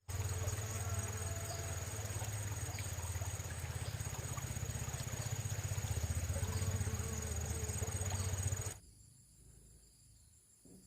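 Insects shrilling in steady high tones over a dense hiss and a low rumble; about nine seconds in, the rumble and hiss cut off abruptly, leaving fainter insect sound.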